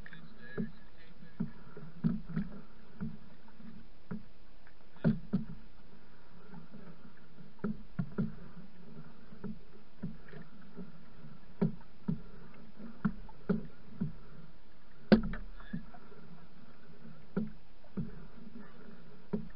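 Open canoe being paddled with a single-bladed wooden paddle on choppy water: irregular knocks and splashes from the paddle strokes, one sharp knock louder than the rest about three-quarters of the way through, over a steady low rumble.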